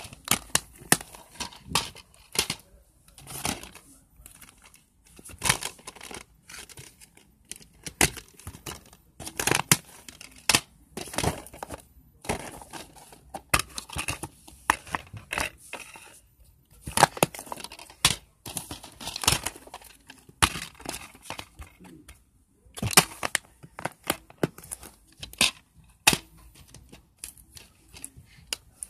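Handling noise of plastic DVD cases and discs close to the microphone: irregular clicks, clacks and rustles with a few short pauses.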